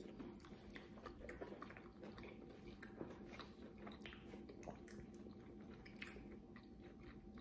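People chewing and biting thin-crust pizza: faint, with many small irregular mouth clicks, over a low steady hum.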